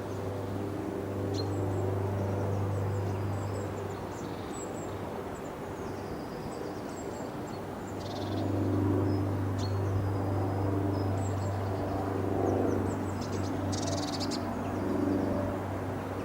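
Blue tit giving short, high, thin calls and chirps, scattered through, over a steady low mechanical hum that grows a little louder about halfway.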